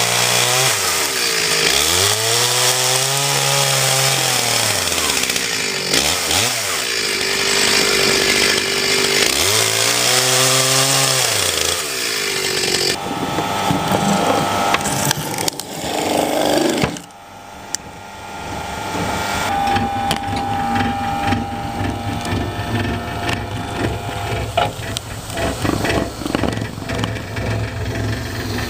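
Motor of a cone log splitter working under load as the threaded cone bores into logs to burst them apart. Its pitch drops and climbs back again several times, with wood noise mixed in. In the second half it runs more steadily.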